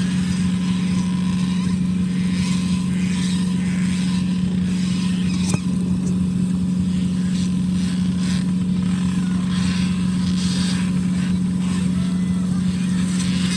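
Fishing boat engine running with a steady low hum, with the splashing of salmon crowded in the purse seine net alongside.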